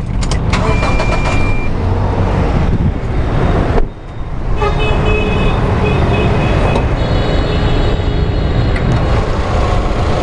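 Toyota Fortuner's 2.7-litre petrol four-cylinder engine running at idle. There is a short break about four seconds in, and a high steady whine joins soon after.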